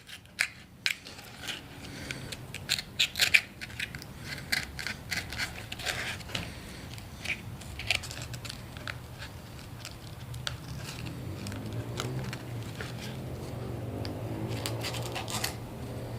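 Cutting out the centre hole of a sandpaper-covered plywood sanding disc by hand: irregular short scraping, crunching cuts, over a faint steady low hum that grows a little in the second half.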